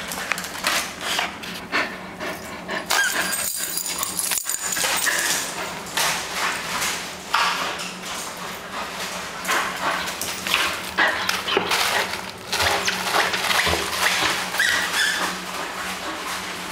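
Bull terrier making play sounds, short whines and barks, among many quick clicks and knocks as it runs about on a hard tiled floor.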